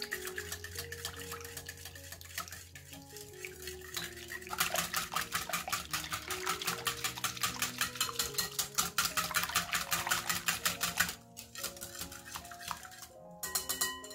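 Metal utensil beating rapidly against a bowl in quick, even strokes, about four or five a second, for several seconds after lighter clinks and scrapes. Background music with piano notes plays underneath.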